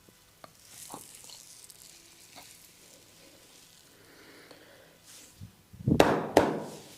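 Hands working over a client during an oil massage, with soft rubbing and faint clicks, then two loud slaps about half a second apart near the end.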